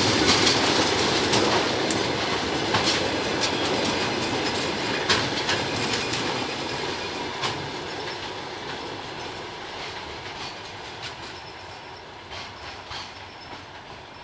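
Railway maintenance train rolling past and away. The rumble of wheels on the rails fades steadily, with sharp clacks of wheels over rail joints that grow fainter toward the end.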